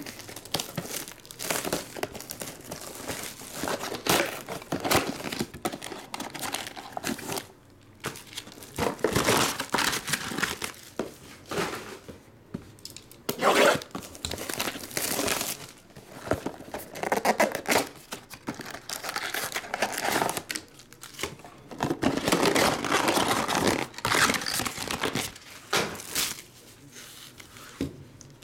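Plastic wrapping and foil trading-card packs being torn and crinkled by hand as a sealed box of football cards is unwrapped and its packs taken out, in irregular bursts of crackling and rustling.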